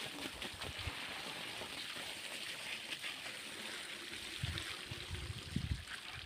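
Water from a garden hose spraying and splashing onto a motorcycle, a steady hiss of spray, with a few short low thuds in the last couple of seconds.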